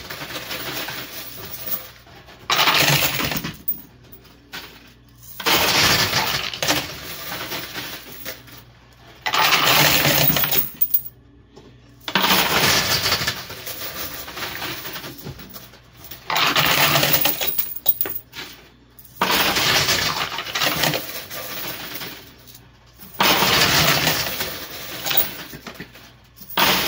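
Quarters clattering in a coin pusher machine: a burst of jingling metal coins dropping and spilling comes every three to four seconds, about seven times.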